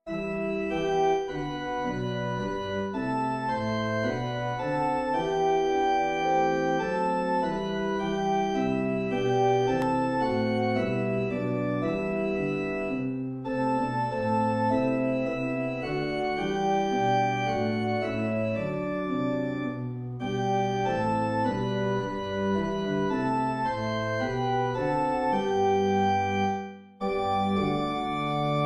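Organ music: slow chords of held, sustained notes, with a short break near the end.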